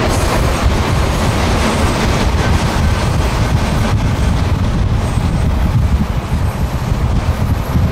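Freight train cars rolling past, a steady low rumble of steel wheels on the rails.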